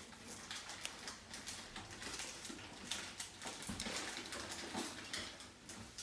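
Soft rustling and scattered small clicks of a paper instruction booklet being handled and its pages turned.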